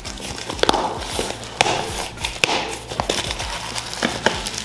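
Black plastic parcel wrapping crinkling and crackling as it is handled and pulled open, with irregular sharp crackles.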